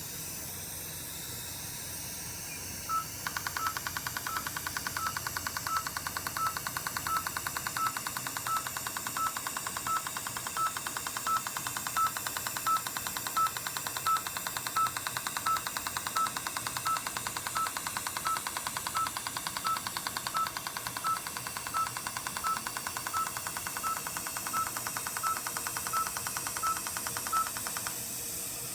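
Er:YAG dental laser firing during NightLase snoring treatment: a rapid train of clicks with a short beep from the laser unit about once a second. It starts about three seconds in and stops about a second before the end, over a steady hiss.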